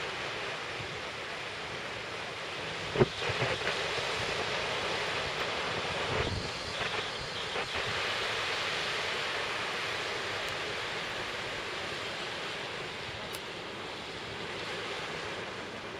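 Steady seaside rush of wind and waves. A sharp knock about three seconds in is the loudest sound, followed by a few softer bumps.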